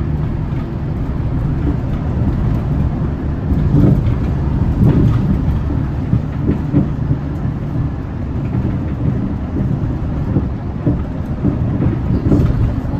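Hyundai Green City diesel bus under way, heard from inside the cabin: a steady low engine and road rumble, with occasional knocks and rattles.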